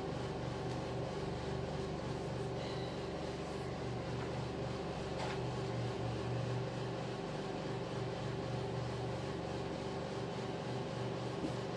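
Steady low machine hum, unchanging throughout, with a faint tick or two.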